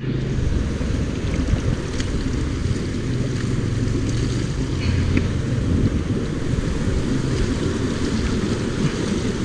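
Steady rush of water flowing fast through a concrete drainage channel.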